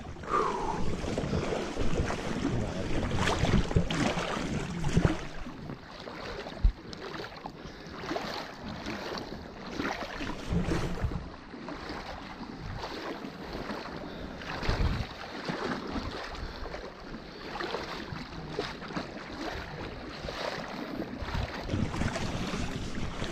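Water sloshing and splashing as people wade through flooded timber, in uneven surges with low thumps from the steps. A single sharp knock comes about six and a half seconds in.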